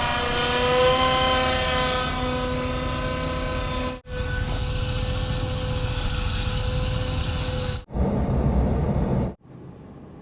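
Heavy machinery running with a steady high whine over the engine noise, in stretches broken by sudden cuts; it drops to a much quieter low rumble near the end.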